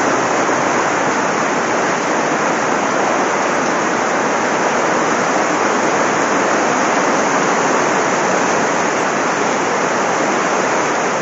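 Heavy downpour with floodwater rushing through a street: a loud, steady rush of water with no breaks.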